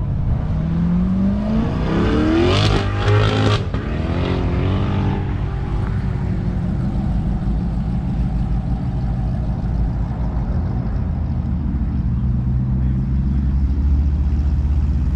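A car engine accelerating hard, its note climbing for about three seconds, then breaking off suddenly at a gearshift and falling away. A steady low engine drone continues underneath.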